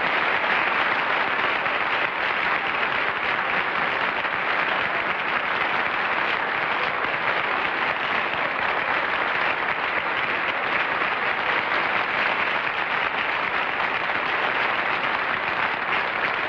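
Studio audience applauding: steady, dense clapping that holds an even level without letting up.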